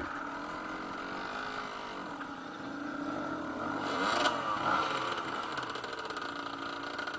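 Several trail motorcycle engines running at low revs on a rocky climb, their pitches rising and falling gently. About four seconds in one revs up and back down, louder, with a short sharp knock.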